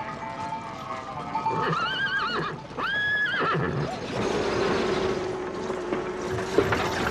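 Horses neighing: two short, wavering whinnies about two and three seconds in. After that comes a steady rumbling noise of hooves and cart under a held musical note.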